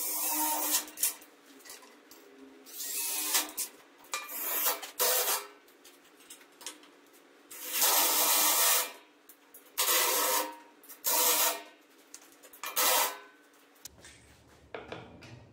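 Cordless drill running in repeated short bursts of about a second each, stopping and starting several times as it drives into the sheet-metal body.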